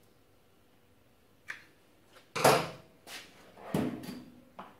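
Tools being rummaged in a tool drawer: a faint click about a second and a half in, then two louder metallic clattering knocks about two and a half and nearly four seconds in.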